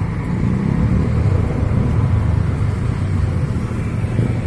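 Road traffic on a multi-lane city street: cars passing, a steady low noise.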